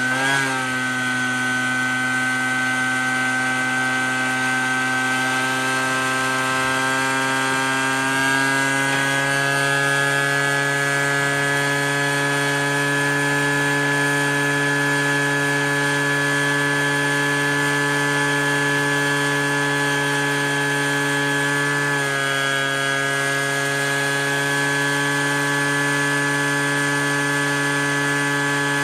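Gas backpack leaf blower engine running steadily at high speed together with four shop vacuum motors, pulling air through the drum and the 4-inch corrugated hose. The pitch steps up slightly about eight seconds in and dips briefly a little past twenty seconds.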